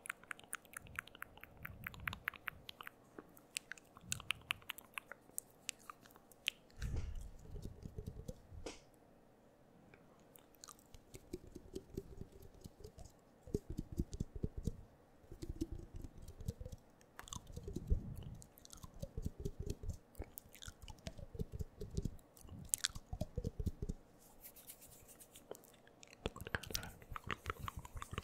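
Close-miked wet mouth sounds: irregular tongue clicks, lip smacks and small pops right at the microphone, coming in clusters with short gaps.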